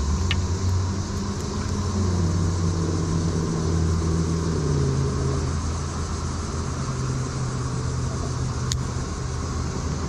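A low, steady engine hum whose pitch slowly falls over the first half, like a motor vehicle running at a distance. There is a faint click near the start and another near the end.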